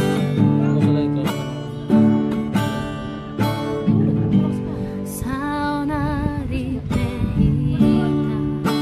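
Acoustic guitar strummed in a steady rhythm, with a woman's voice singing a long, wavering note about halfway through.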